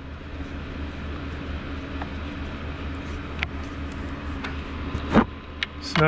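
Steady low mechanical hum, with a few light clicks and one sharper knock about five seconds in as the screws of an outboard carburetor are snugged down with a screwdriver.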